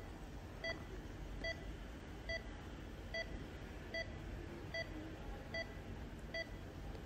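Pulse-oximeter beeps from an anaesthesia patient monitor, one short beep about every 0.8 seconds in a steady rhythm that follows the heartbeat.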